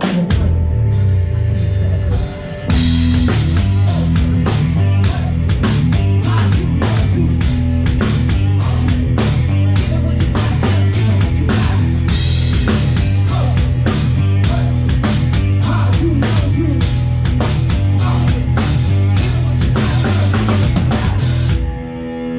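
Live amplified band playing a song: a drum kit keeps a steady beat over a heavy bass line, filling out fully about three seconds in. The band stops short near the end, leaving a held low note ringing.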